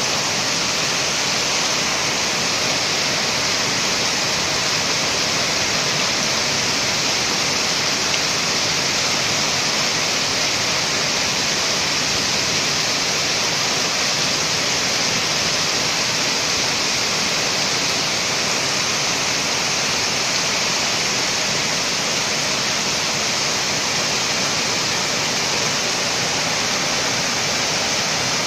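Torrential rain falling steadily, a dense even hiss that does not let up.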